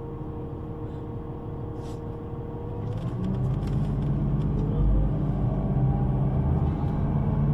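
Public-transport vehicle heard from on board: a steady rumble, then from about three seconds in it gets louder as it pulls away. The motor's pitch rises as it speeds up.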